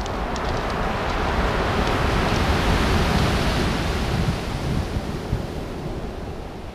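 Surf breaking and washing up a pebble beach, swelling over the first couple of seconds and slowly fading away.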